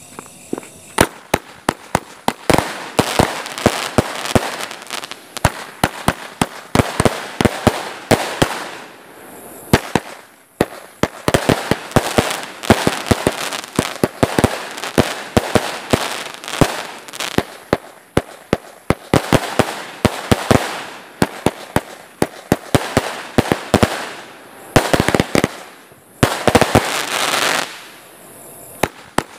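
A 49-shot firework cake firing: rapid sharp bangs one after another, with the crackle of bursting gold glitter stars. There are brief lulls about 10 and 24 seconds in.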